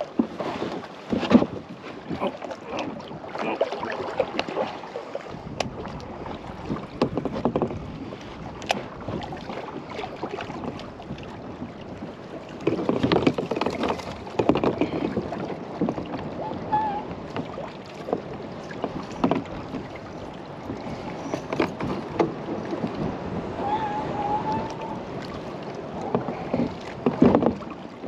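A kayak being handled on the water: paddle strokes splashing, water sloshing against the hull, and irregular knocks and scrapes of paddle and gear on the boat. The loudest bursts come about a second in, around the middle and just before the end.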